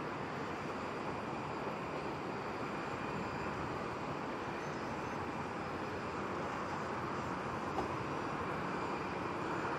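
Jet airliner engine noise: a steady rush with a faint high whine, growing slightly louder near the end.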